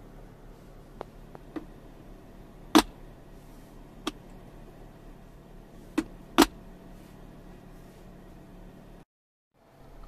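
Centre-console armrest lid of a 2019 Cadillac XTS being unlatched and opened and shut: a series of sharp latch clicks and lid knocks, the loudest about three seconds in and a quick pair just after six seconds, over a steady low hum. The sound cuts off abruptly about nine seconds in.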